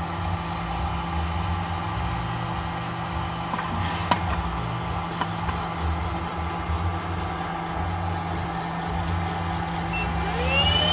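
Electric coffee sample roaster running: a steady hum of its motors with an uneven low rumble and a single click about four seconds in. Near the end another motor on the roaster spins up with a rising whine that settles into a steady high tone, and the sound gets louder.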